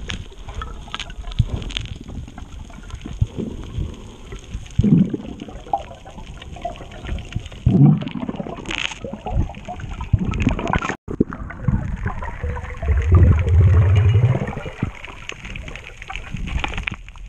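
Underwater sound picked up through a camera's waterproof housing: water gurgling and sloshing, with many scattered clicks and knocks. A louder low gurgle lasts over a second about three-quarters of the way in.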